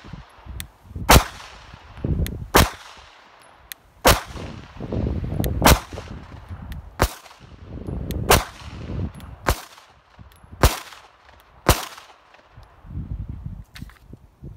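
CZ P07 9mm pistol firing subsonic 147-grain FMJ rounds unsuppressed: nine single shots, spaced about one to one and a half seconds apart, each a sharp crack with a trailing echo.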